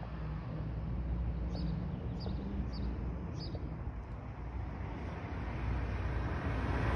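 Steady low outdoor rumble of street ambience, with a few short, faint, high chirps between about one and a half and three and a half seconds in.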